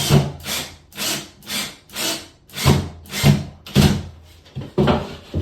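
Drill-driver running in short trigger pulses, about two a second, driving a drywall screw into green board a little at a time to pull the wall plumb.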